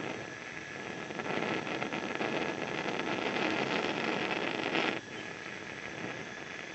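Bunsen burner running on a roaring flame: a steady rushing hiss that falls away suddenly about five seconds in, leaving a quieter hiss.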